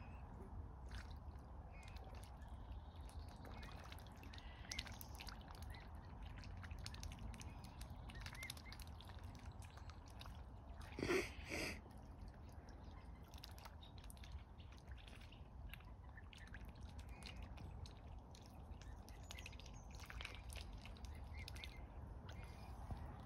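Mute swans and cygnets dabbling at the water's surface as they feed: soft irregular splashes, drips and small bill clicks. About halfway through, a bird gives one short double call.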